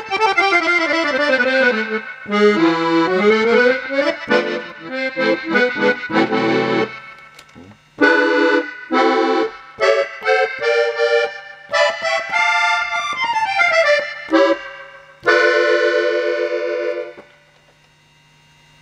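Piano accordion being played: short melodic runs and chords in phrases with brief pauses, ending on a held chord a couple of seconds before the end.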